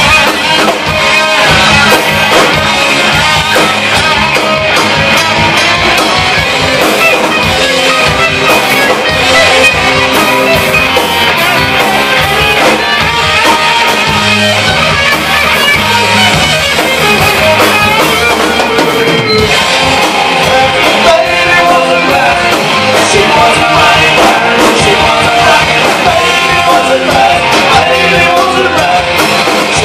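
Live hard-rock band playing loud through stage amplifiers: distorted electric guitars, bass guitar and a drum kit, with a male voice singing.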